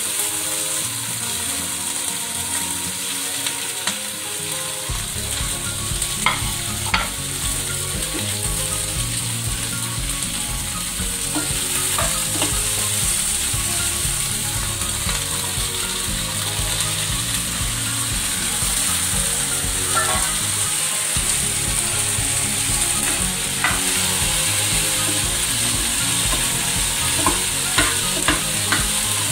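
Sliced ivy gourd sizzling as it fries in hot oil in a frying pan, stirred with a steel ladle that clicks against the pan now and then, several times near the end.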